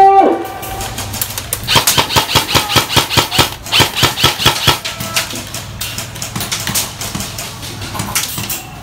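A quick, irregular run of sharp clicks and knocks over a faint steady hum. The clicks are densest for a few seconds about two seconds in, then thin out.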